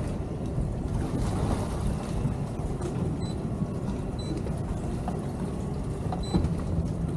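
Twin outboard motors on a small towboat idling, a steady low running sound.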